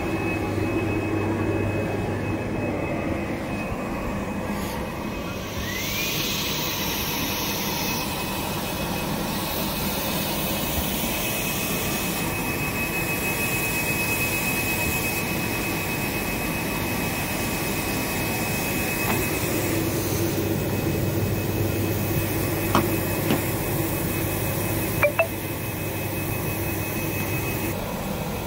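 Single-pass inkjet printer running: a steady mechanical whir with a thin, high steady whine over it, and a couple of short sharp clicks near the end.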